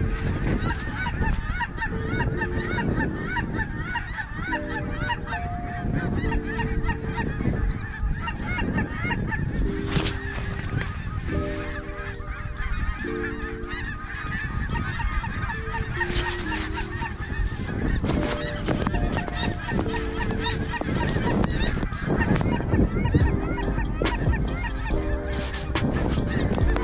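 A flock of geese honking, with many calls overlapping continuously.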